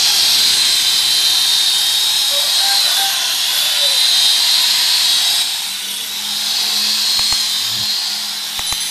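Electric rotary car polisher with a wool buffing pad running against a car's door paint, buffing out dull paint: a steady high whine that drops a little in level about two-thirds of the way through. A few clicks near the end.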